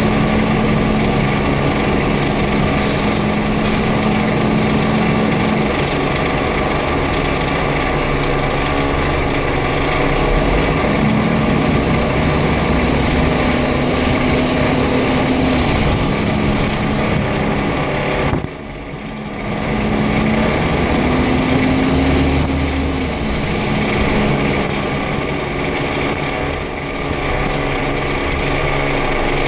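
A Scania N94UD double-decker bus heard from inside the lower deck while under way. Its five-cylinder diesel engine runs steadily, the engine note climbing and dropping back several times as it works through changes of speed and gear.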